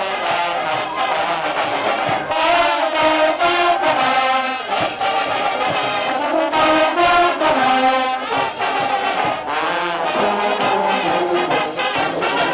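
Marching band playing a tune on brass instruments as it marches, with trombones prominent.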